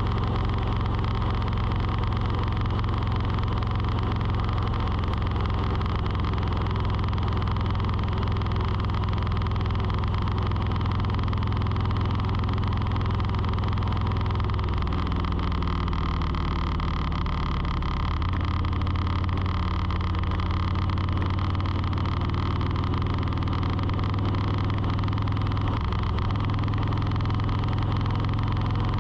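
A steady motor hum, shifting slightly in pitch a few times.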